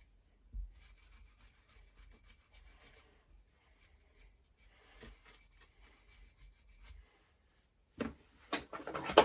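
Cloth wiping grease and grime off the chrome shell of a Sturmey-Archer AG Dynohub, a faint steady rubbing, followed near the end by a few louder knocks.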